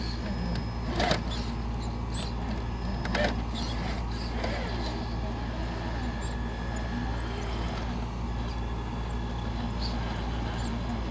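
Traxxas TRX-4 RC rock crawler's electric motor and drivetrain whining steadily at low speed as it crawls up a steep rock pile. There are sharp knocks of tyres and rock about one second and three seconds in.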